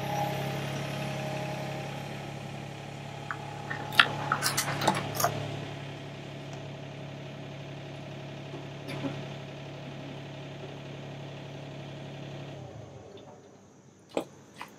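Sany SY35U mini excavator's diesel engine running steadily, with a cluster of sharp metal clanks about four to five seconds in as the tilt bucket is set down. The engine sound cuts off near the end, leaving a few light clicks.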